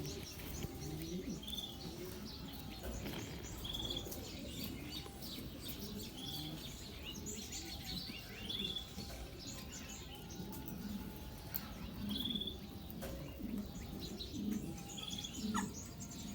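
Several birds calling together: a short high call repeats about once a second, over scattered chirps and a low cooing underneath.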